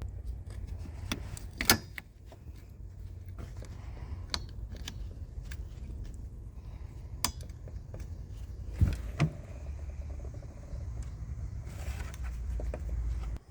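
Pliers and metal parts clicking and clinking as a spring clamp is worked off a radiator hose, over a steady low rumble. There are two sharper knocks, one near the start and one about two-thirds through.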